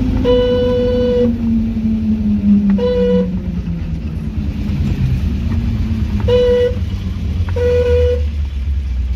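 A vehicle horn with a single note sounds four times: one long toot of about a second, then three short ones. Under the toots is the running engine of a small loaded goods vehicle, whose note falls steadily over the first few seconds and then settles into a low rumble.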